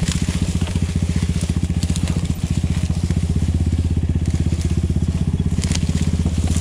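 Chinese-made enduro motorcycle engine running steadily while riding off-road, with a few sharp cracks of twigs and dry branches under the tyres, about two seconds in and near the end.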